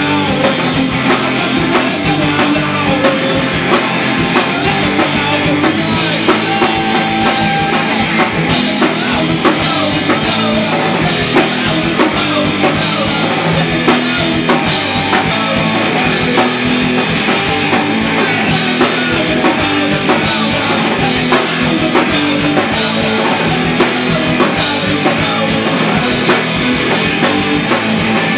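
Live rock band playing loud and without a break: electric guitars, bass guitar and a drum kit.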